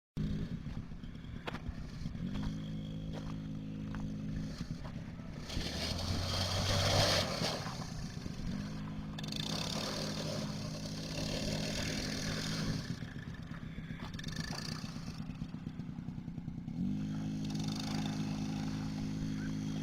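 Small ATV engine running, opened up on the throttle three times for a few seconds each, its pitch rising as it picks up, then settling back between. A short rushing noise, the loudest part, comes about six to seven seconds in, and a few light clicks and scrapes come early on.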